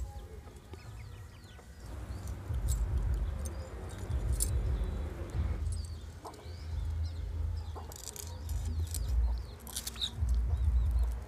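Hens clucking around, with scattered sharp clicks and scraping from small fish being scaled and cut on an upright floor blade (boti). A low rumble comes and goes underneath.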